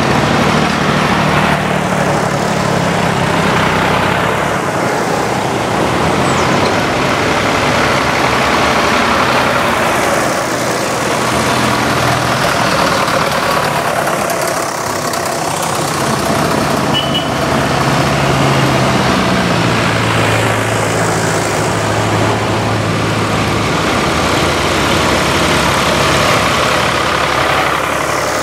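Vintage tractors driving past one after another, their engines running steadily, the sound swelling and fading as each one nears and goes by.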